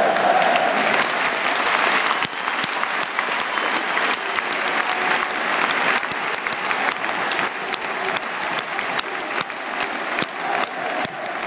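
Large football stadium crowd applauding with dense, sustained clapping. A crowd chant dies away in the first second and starts up again near the end.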